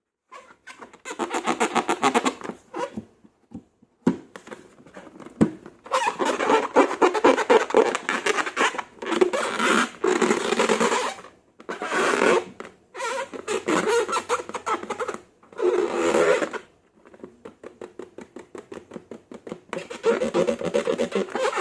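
Slime being squeezed and worked by hand, giving wet, crackling, popping squelches in several runs of one to three seconds with short pauses between them.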